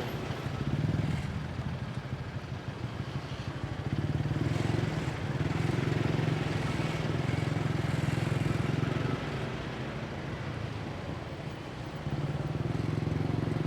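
Motorbike engine running under way in traffic, with wind and road noise. It gets louder about four seconds in, eases off around nine seconds and picks up again near the end.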